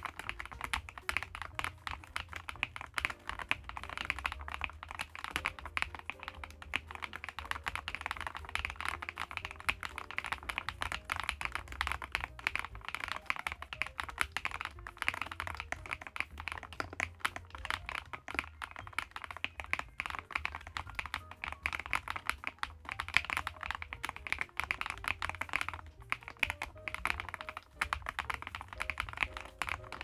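Steady, fast typing on an EPOMAKER TH40 40% gasket-mounted mechanical keyboard with Wisteria switches: a dense, continuous stream of key clacks. No ringing from inside the case is heard, as the reviewer judges it.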